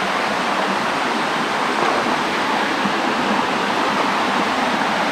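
Small waterfall cascading over boulders into a rock pool: a steady rush of falling water.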